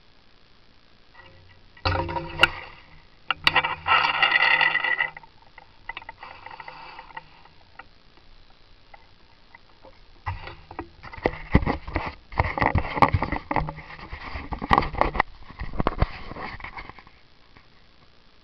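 Handling noise on the camera's own microphone as the cablecam rig is picked up out of the grass: rustling and scraping with sharp knocks, in two bouts, one about two seconds in and a longer one from about ten seconds in.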